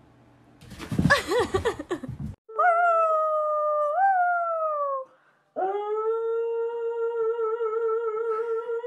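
A dog howling in two long drawn-out howls. The first falls in pitch and the second holds a steady, wavering pitch. They follow a short, loud, noisy burst about a second in.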